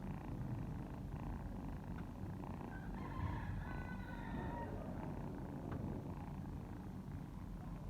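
A mother cat purring steadily as her kittens nurse, with a brief higher-pitched cry about three seconds in.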